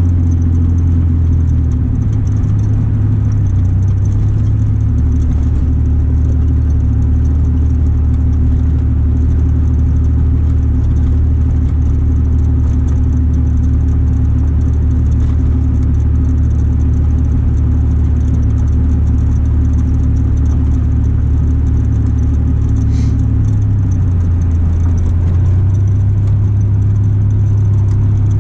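Chevy S10 pickup's straight-piped exhaust droning low and steady under way, heard from inside the cab. The pitch shifts about two seconds in and again near the end.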